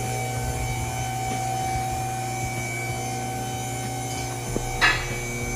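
Electric pump motor of a car lift running with a steady hum, raising the car. A brief sharp clack comes near the end.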